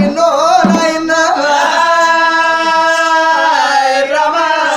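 A man's voice singing a long drawn-out note in Telangana Oggu Katha folk style. The pitch slides at first, holds steady for about two seconds, then drops near the end.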